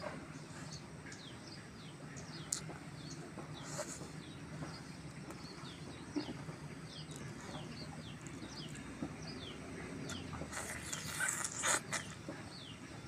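Birds chirping outdoors, a steady run of short, quick, falling calls, alongside close eating sounds of someone feeding by hand: a few sharp mouth clicks and a louder crunchy, rustling burst near the end.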